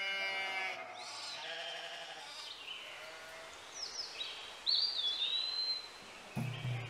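Flock of sheep bleating: one long bleat at the start, then fainter, scattered bleats. A few high, gliding whistles come about four to five seconds in.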